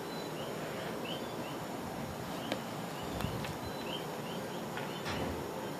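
Puppy nosing and chewing a plush toy in a fleece bed: soft rustling and a few small clicks. Under it are faint, short high chirps that come and go irregularly.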